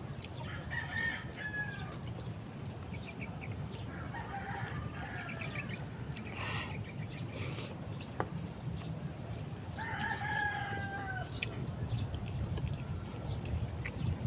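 Rooster crowing three times, a few seconds apart, each crow a drawn-out call about a second long that falls slightly at its end, over a steady low background rumble.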